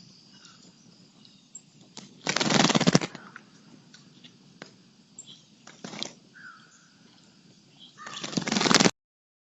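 Bird wings flapping close to the microphone in two loud fluttering bursts, one about two seconds in and one near the end, with a few faint short bird chirps between them.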